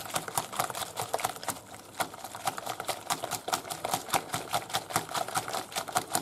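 A green whisk beating raw egg and grated cheese in a glass bowl, with rapid clicking strokes, several a second, as the whisk knocks against the glass.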